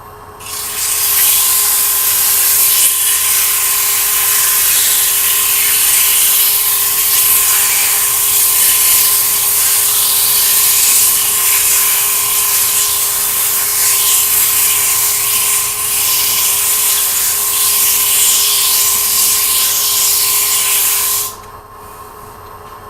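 150-grit sandpaper held against a workpiece spinning on a wood lathe at low speed: a steady hiss of abrasive on wood that starts about half a second in and stops suddenly near the end. The lathe's motor hums steadily underneath.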